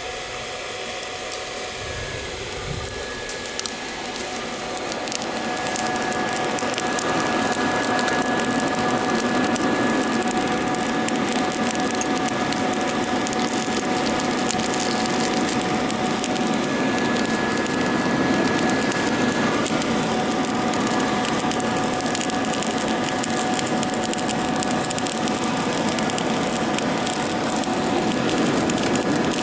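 Small electric blower motor running steadily with a thin whine, blowing air into a forge fire that crackles and pops with many fine rapid clicks; the sound gets louder about five seconds in.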